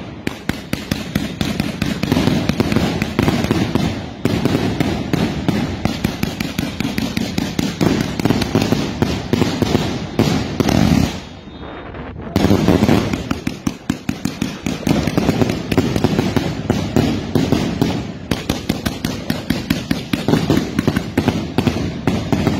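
Fireworks and firecrackers going off in a dense, rapid string of cracks and bangs, breaking off briefly a few times before starting again.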